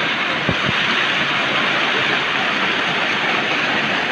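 Waterfall cascading over rocks close to the microphone: a loud, steady rush of falling white water, with a couple of brief low bumps about half a second in.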